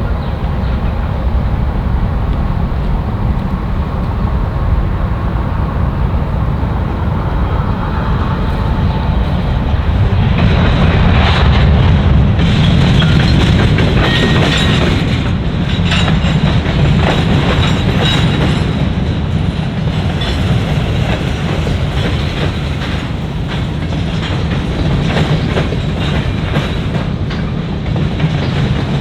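CN freight grain train rolling past with a steady low rumble and wheels clicking over the rail joints, growing louder about ten seconds in.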